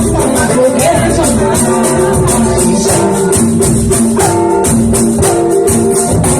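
Music with a fast, steady shaker-like beat under held melodic notes.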